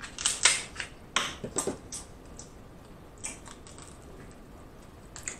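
Kitchen shears snipping through a king crab leg's hard shell and the shell cracking: a run of sharp, crisp clicks and crunches in the first two seconds, then a few sparser, fainter ones.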